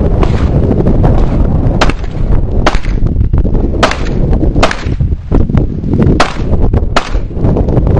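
A string of pistol shots, about six sharp cracks roughly a second apart, over loud wind buffeting the microphone.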